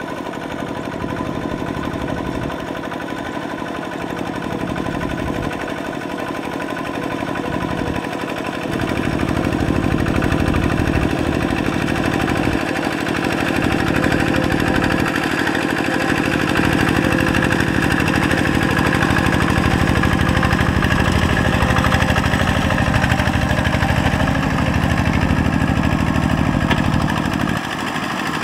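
Single-cylinder diesel engine of a two-wheel walking tractor with cage wheels, running steadily with a fast, even chug as it works a flooded rice paddy. It gets louder about nine seconds in and drops back just before the end.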